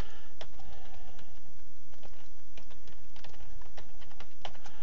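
Typing on a computer keyboard: irregular key clicks as a short line of text is entered, over a steady low background hum.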